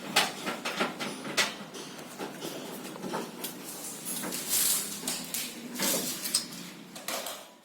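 Handling noise: irregular clicks, knocks and light clatter of objects being moved about, stopping just before the end.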